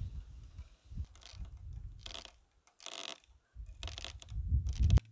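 Copper wire being tightened round a timber corner post with a hand wire-tensioning tool: about five short scraping, crunchy rasps a little under a second apart, over low rumbling on the microphone, all cutting off abruptly near the end.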